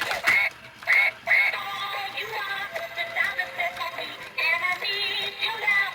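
Music with a high, synthetic-sounding sung melody.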